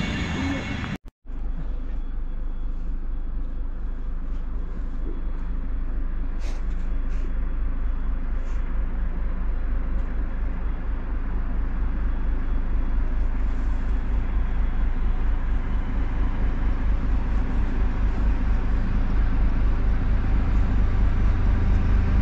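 Low steady rumble of an approaching diesel locomotive hauling tank wagons, slowly growing louder. It follows the tail end of a passing electric train, which breaks off about a second in.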